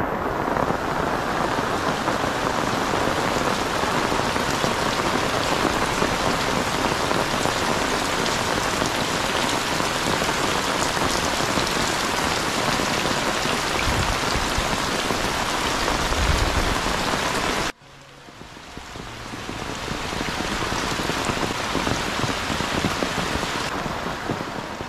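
Heavy rain pouring steadily. About two-thirds of the way through, the sound cuts off abruptly and comes back quieter, swells up again, then fades out at the end.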